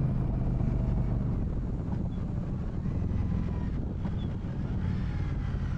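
Indian Scout's V-twin engine running steadily as the motorcycle cruises, muffled by a sock inside a saddlebag, with some wind noise over it.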